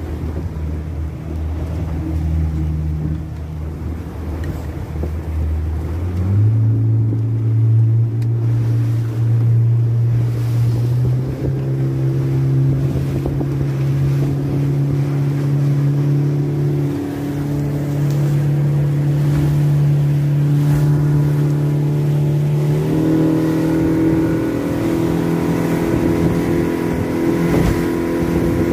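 Selva Murena XSR outboard motor pushing a motorboat along at speed, running steadily, its pitch stepping up three times as the revs climb. Wind and rushing water noise underneath.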